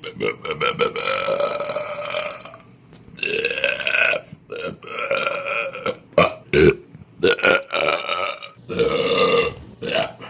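A man belching over and over: several long, drawn-out, pitched belches of one to two and a half seconds each, with a few short ones in between.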